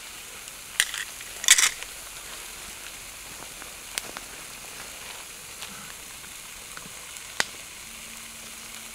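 Fresh scallops sizzling in a frying pan over a wood campfire: a steady hiss with a few sharp pops, the loudest a quick cluster about a second and a half in.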